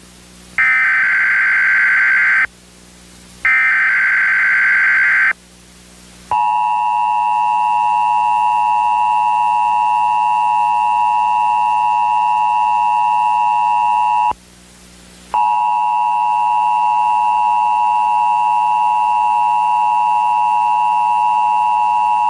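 Emergency Alert System tones for a Required Monthly Test: two bursts of the SAME digital header, a buzzy data warble of about two seconds each, a second apart. About six seconds in the steady two-tone attention signal begins; it breaks off for about a second midway and then resumes.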